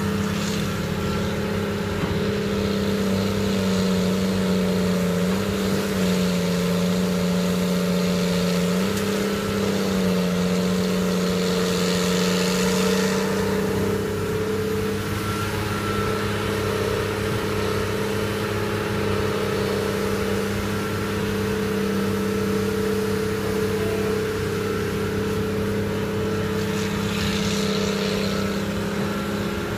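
Liebherr 952 crawler excavator's diesel engine running steadily under working load, its pitch dipping and rising slightly as the machine digs and swings. About twelve seconds in, and again near the end, comes a short rushing clatter as a bucketload of soil and rock pours into the dump truck's bed.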